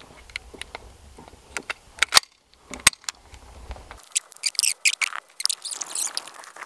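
Sharp metallic clicks and knocks from a shot-up blank-firing pistol being handled, with a denser run of rapid clicking and clatter in the second half.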